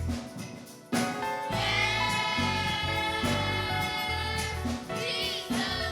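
Gospel song with a choir singing over a band with a steady beat. The music dips briefly about a second in, then comes back in full.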